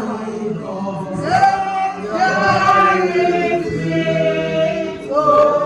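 A group of voices singing together, unaccompanied, on long held notes that step from pitch to pitch.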